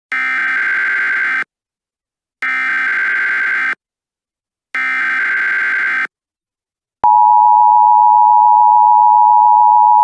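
Emergency Alert System tones: three short buzzing data bursts of the SAME header, then about seven seconds in the steady two-tone EAS attention signal starts and holds.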